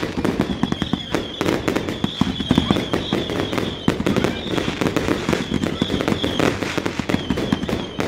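Fireworks firing in a rapid, continuous barrage of bangs and crackles, with no break. A high wavering whistle comes and goes through much of it.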